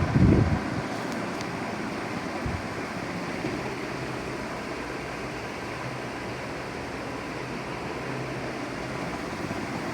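Super Asia Golden Series 56-inch ceiling fan running: a steady rush of moving air with a faint hum under it. A brief louder low rumble comes right at the start.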